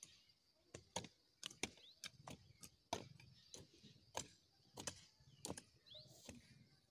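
Faint, irregular sharp knocks and scrapes of hand hoes chopping into the soil while weeding maize, about two to three strikes a second.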